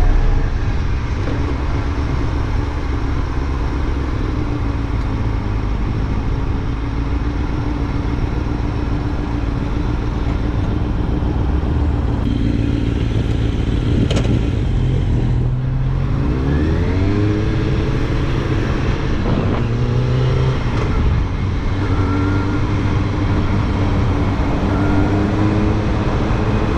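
Kawasaki ZX-6R sport bike's inline-four engine running under way. About halfway through the revs dip briefly, then climb again in a rising whine.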